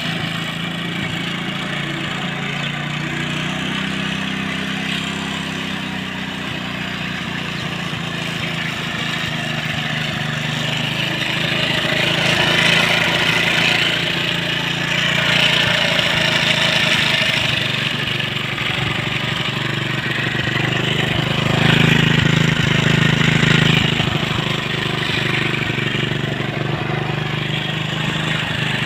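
Delta moped's small single-cylinder two-stroke engine running, revved up several times, most strongly about two-thirds of the way through.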